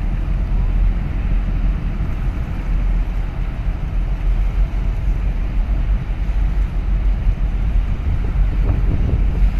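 Wind buffeting the microphone over a steady low rumble from a large container ship and the tug working alongside it, with the sea washing around the breakwater.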